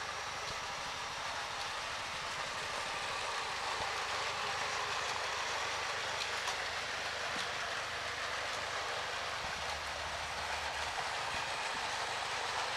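Battery-powered Plarail toy train, a Percy engine pulling zoo wagons, running on plastic track: its small motor and gears whirring and its wheels rattling, a steady sound.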